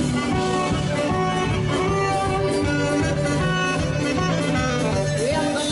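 A band playing music live, a melody line over a steady bass.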